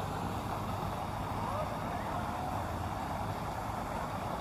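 Steady city-park ambience: a constant hum of traffic with faint distant voices.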